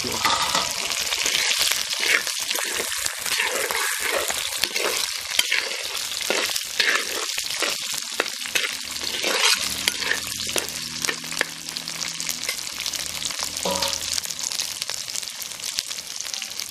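Shallots, garlic, dried red chillies and veldt grape sizzling as they fry in oil, stirred and scraped around a black pot with a steel spatula.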